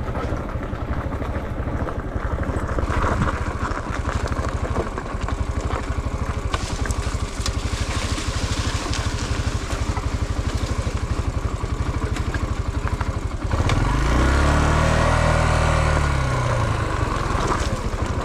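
Dirt bike engine running at low revs, its firing pulses steady. About thirteen seconds in it revs up louder and then drops back down.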